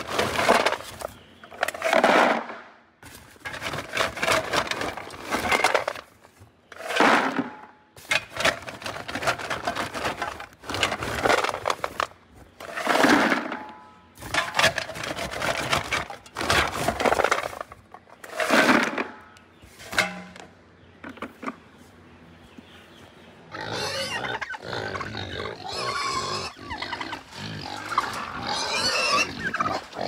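Kunekune pigs squealing at feeding time, one loud cry every second or two, then a busier jumble of farm-animal noise over the last several seconds.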